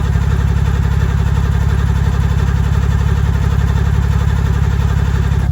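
Chevrolet Camaro engine idling with a steady, low rhythmic pulse.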